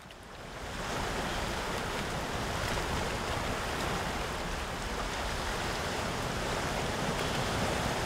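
Surf breaking and washing over a shallow rocky reef: a steady rushing wash of waves that swells up over the first second and then holds level.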